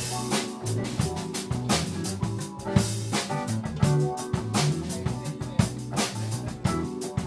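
Live band playing a smooth-jazz instrumental: drum kit, electric bass and a hollow-body electric guitar, with keyboard.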